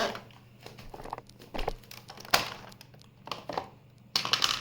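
Plastic clicks, knocks and rustling from handling a Shark DuoClean vacuum's floor head as its brush-roll cover is opened, with one sharp click about halfway through and a short rustle near the end.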